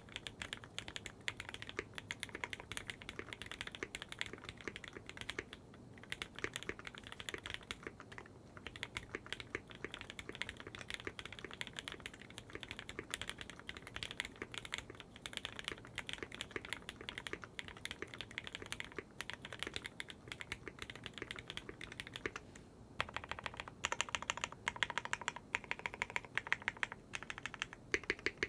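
Continuous typing on a custom 60% mechanical keyboard with lubed 65 g retooled Cherry MX Black linear switches, on a burger-mounted FR4 plate with GMK keycaps: a steady stream of quick keystroke clacks. After a brief pause about two-thirds of the way through, the keystrokes come louder and brighter.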